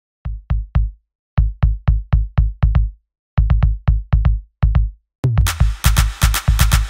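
Electronic music beat: deep drum-machine kick hits in three short runs separated by brief silences, then about five seconds in the full beat comes in with hi-hats over it.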